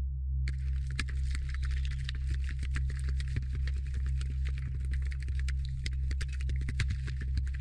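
Intro sound design: a deep, steady drone with dense, irregular crackling over it that starts about half a second in.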